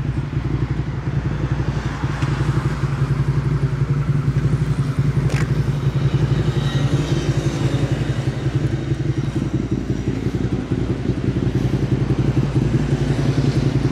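Suzuki SV650's V-twin engine idling steadily through an aftermarket exhaust, with an even, unchanging beat. A single light click sounds about five seconds in.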